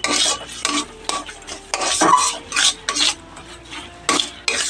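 Metal spatula scraping and stirring thick mashed pumpkin around a metal kadai, in repeated short scrapes about two a second.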